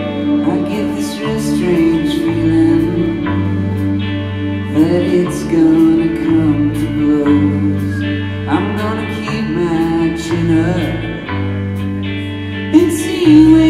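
Live rock band playing a song: electric guitars, a Roland Juno-60 synthesizer, bass guitar and drums, with singing. The bass moves to a new note about every second under a held synth tone.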